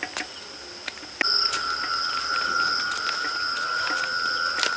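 Crickets chirring steadily, a louder one joining about a second in. A few short clinks of stacked stainless-steel plates and bowls being carried, the sharpest near the end.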